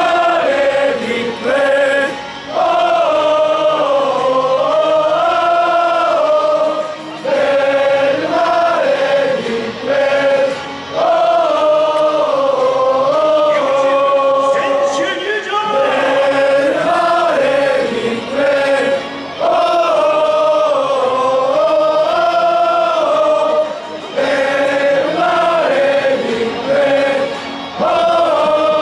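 Large crowd of football supporters singing a chant together in unison, one melodic phrase sung over and over, with short breaks between the phrases.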